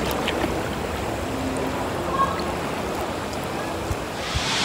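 Steady running water. Near the end a much louder, even rush of water swells in.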